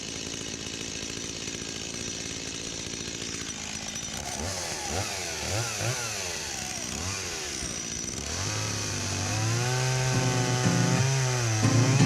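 Two-stroke chainsaw running at a steady high pitch. From about four seconds in, its engine pitch rises and falls repeatedly as it cuts into a log. Background music with a bass line comes in over it in the last few seconds.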